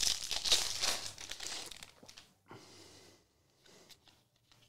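The wrapper of a Topps NBL trading-card pack being torn open and crinkled by hand, loudest over the first two seconds, followed by a few fainter rustles as the cards are handled.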